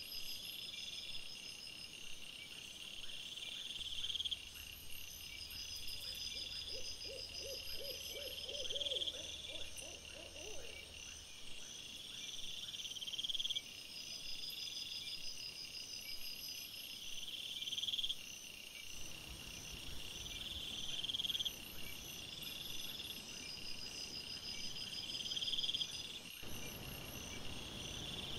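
Night insects, crickets or bush crickets, chirping in repeated bursts about every two seconds. A short series of lower pulsed notes comes in about six seconds in and stops after about four seconds.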